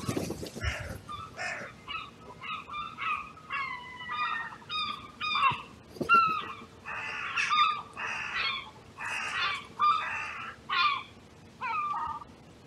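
Carrion crows cawing over and over, harsh calls following one another closely for most of the stretch.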